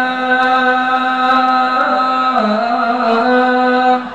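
A man chanting into a microphone: one long held note with small melodic turns, dipping a little past the middle and breaking off near the end.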